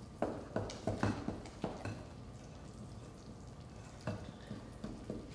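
Spoon beating brownie batter of mix, oil, water and egg by hand in a glass mixing bowl: irregular clinks and scrapes, several quick strokes in the first two seconds, then a pause, then a few more about four seconds in.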